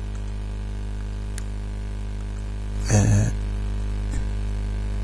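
Steady low electrical mains hum on the recording. About three seconds in there is a brief sound from the narrator's voice.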